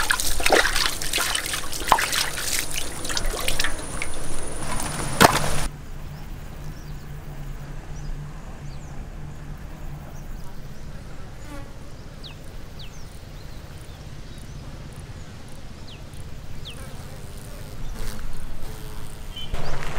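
Ribs squeezed and rubbed by hand in a bowl of turmeric-and-salt water: wet splashing and dripping, which cuts off abruptly about six seconds in. After that comes a quieter outdoor background with a few short high chirps.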